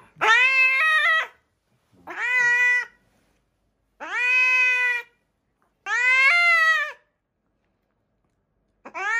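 Domestic cat meowing: a series of long, drawn-out meows of about a second each with short silent pauses between them. Four come in turn, and a fifth begins near the end.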